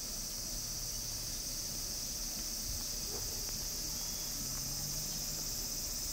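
Insects droning steadily and high-pitched in the trees, a continuous summer chorus of cicadas.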